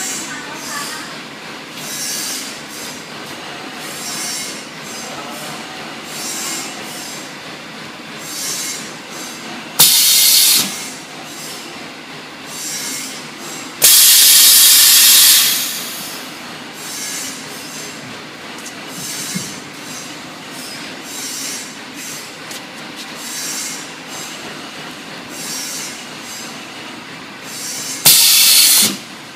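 Paper heart baking-mold forming machine running, its mechanism cycling roughly every two seconds. Loud bursts of compressed-air hiss from its pneumatics cut in about ten seconds in, again for over a second at around fourteen seconds, and once more near the end.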